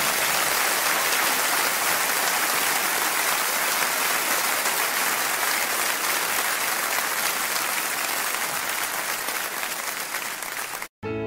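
Audience applause after a song ends, a dense steady clapping that slowly fades, then cuts off abruptly near the end as a new piece of music begins.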